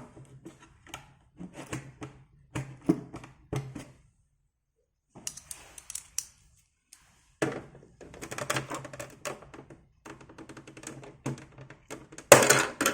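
A screwdriver prying at the plastic expansion-slot cover on the end of an Amiga 500 case: irregular clicks, taps and scrapes of metal on plastic, with a louder clatter near the end.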